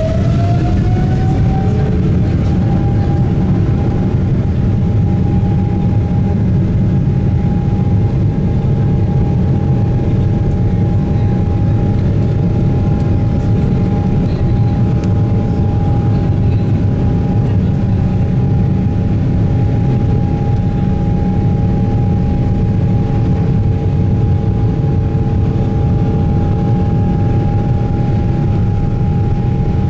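Boeing 777 jet engines heard from inside the cabin as the airliner rolls along the ground: a steady whine over a loud, even rumble. The whine rises a little and levels off in the first couple of seconds.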